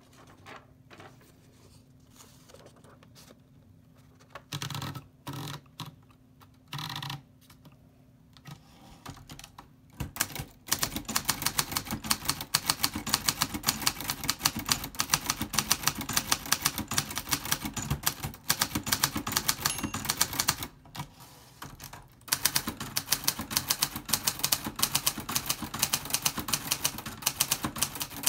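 Hermes 3000 manual typewriter: a few short bursts of handling noise in the first ten seconds, then fast typing, the type bars striking the platen in a rapid clatter of clicks that breaks off briefly about 21 seconds in before carrying on.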